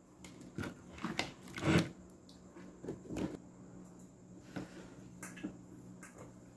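Scattered clicks and rustles of hands handling wires and small parts while connecting a power wire, with a faint steady hum underneath.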